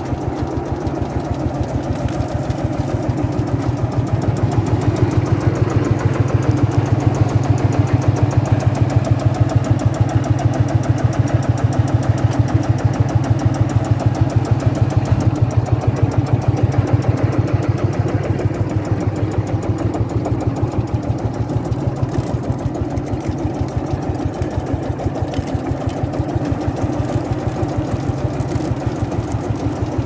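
Lanz Bulldog 3606's single-cylinder two-stroke engine running with a rapid, even beat while it drives a cable winch. It is a little louder from about four seconds in until about eighteen seconds in.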